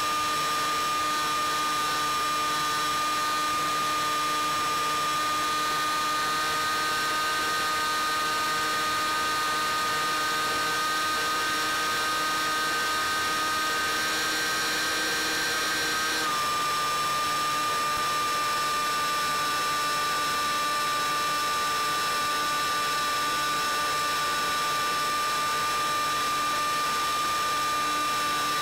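Bixler 3's electric motor and pusher propeller whining steadily in flight, over a hiss. The pitch steps up slightly about six seconds in and drops a little at around sixteen seconds, as the throttle changes.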